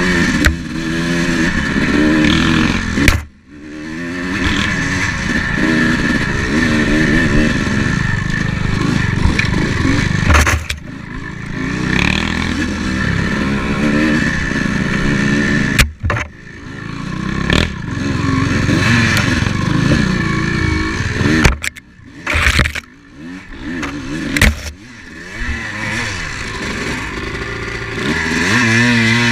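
Dirt bike engine revving up and down with the throttle, its pitch rising and falling continually, with sharp knocks and rattles now and then. The engine note drops away sharply about three seconds in and again briefly around twenty-two seconds.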